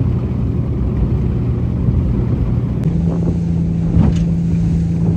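Small open boat's motor running steadily with a continuous hum that steps up in pitch about three seconds in.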